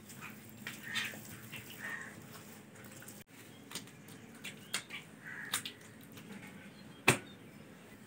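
Bricks being set and bedded in wet mud by hand: light scraping, shuffling and soft knocks of brick and mud on a hard floor, with one sharp knock about seven seconds in.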